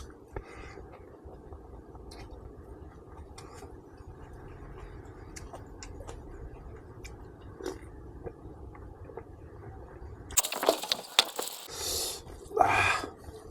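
Mukbang eating sounds of pork being chewed: faint scattered mouth clicks over a steady low hum, then louder chewing and smacking noises from about ten seconds in.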